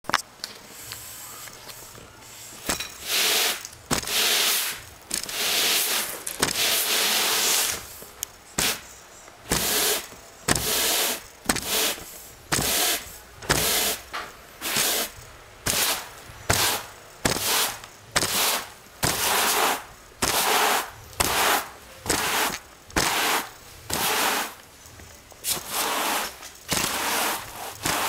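Stiff-bristled push broom sweeping across carpet and hard floor, heard up close at the broom head: a steady run of scratchy brushing strokes, about one a second, starting a couple of seconds in, with a few sharp knocks between strokes.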